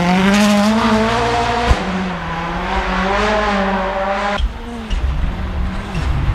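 Toyota Yaris WRC rally car's turbocharged four-cylinder engine at high revs as the car passes and pulls away on a snowy road, its pitch rising and dipping with throttle and gear changes and slowly fading, with a short pop about two seconds in. After an abrupt change about four seconds in, the engine is heard fainter, growing louder near the end.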